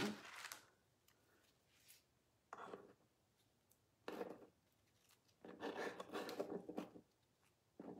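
Oreo cookies pulled from their plastic package tray and set down on a snack tray: faint rustles and scrapes in five short spells, the longest a little over a second.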